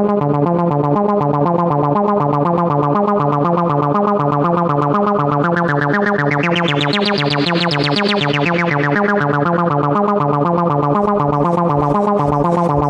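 Acid techno at 120 BPM: a synthesizer repeats a fast, looping note pattern. Its sound opens and brightens in a filter sweep about halfway through, then closes back down.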